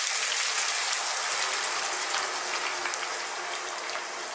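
Chicken, onion and aromatics frying in hot oil, sizzling steadily as coconut milk is poured into the pan, easing off slightly toward the end.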